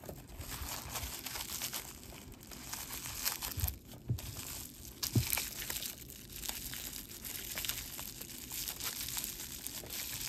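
Wrapping being handled as a piece of jewelry is unwrapped: continuous rustling and crumpling with many small clicks and a few soft knocks.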